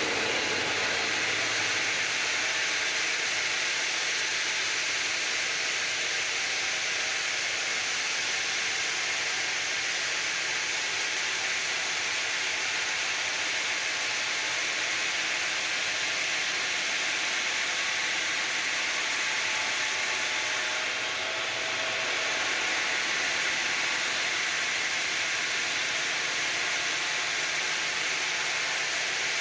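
Ring-system granite cutting machine sawing through granite, a steady hissing grind that holds an even level throughout.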